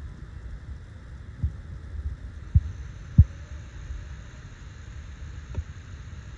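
Low rumble of wind on the microphone, with a few short low thumps, the loudest about three seconds in.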